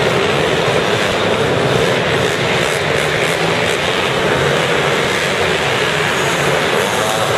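Several small four-stroke mini motocross bikes running together around a dirt track, a steady dense blend of engine noise with no single bike standing out.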